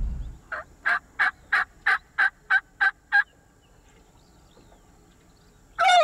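Rio Grande wild turkeys calling: a run of nine short, evenly spaced calls at about three a second, then a loud gobble bursting out near the end.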